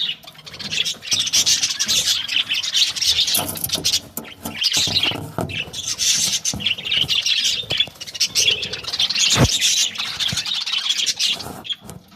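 Budgerigars chirping and chattering in rapid, busy bursts with short pauses, and one sharp click about nine seconds in.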